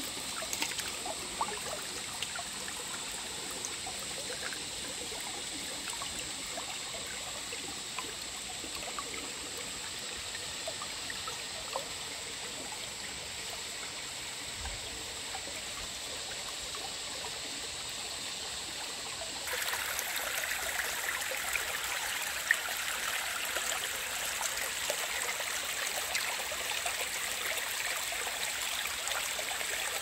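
Creek water running and trickling steadily, with small splashy ticks. About two-thirds of the way through, the flow gets louder and brighter all at once.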